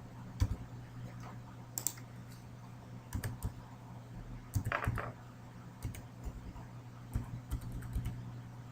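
Typing on a computer keyboard: irregular, scattered keystrokes over a low steady hum, with one brief louder sound about five seconds in.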